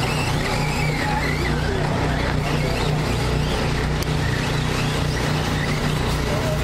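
RC short-course trucks racing around the track, their motors whining in pitches that rise and fall as they speed up and slow down, over a steady low hum.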